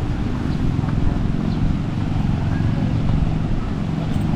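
Wind buffeting the microphone in a steady low rumble, over the hiss of small waves washing onto a sandy beach.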